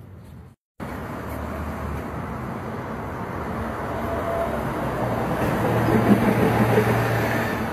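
City street traffic: a steady rush of passing vehicles with a low engine hum, growing louder over several seconds, heard through a phone recording. A brief dropout about half a second in.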